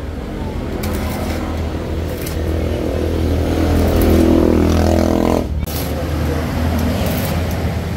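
Stick (arc) welding with a Daiden 200-amp welding machine: a steady hum under the crackle of the arc, swelling louder about three seconds in, then breaking off abruptly about five and a half seconds in before the crackle picks up again.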